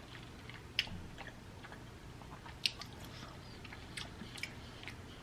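A person chewing food close to the microphone: faint, scattered mouth clicks and smacks, a couple of them sharper, about a second in and near the middle.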